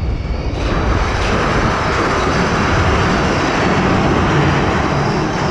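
Big Thunder Mountain Railroad's mine-train roller coaster rumbling along its track, heard from on board. A steady rushing hiss joins the rumble about half a second in.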